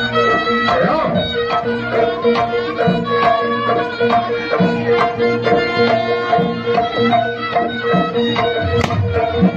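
Traditional Javanese music accompanying a barongan dance: steady drumming under a held ringing tone, with a melody line moving above.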